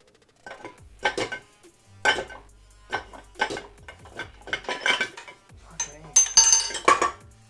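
Cast-iron center housing of a Mazda 13B rotary engine clanking and scraping against the eccentric shaft as it is worked up and off. It is a run of sharp metal knocks, about one or two a second, with a longer ringing clang near the end.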